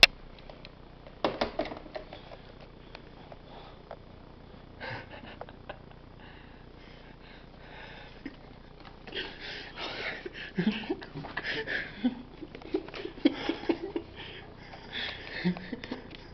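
Stifled, breathy laughter in many short bursts from about nine seconds in, after a sharp click at the start and a knock about a second later.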